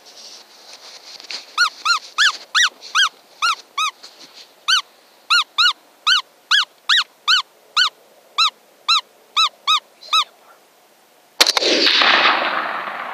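A run of about twenty short, high, squeaky calls, roughly three a second with a few pauses, then a single loud rifle shot about eleven seconds in, echoing away.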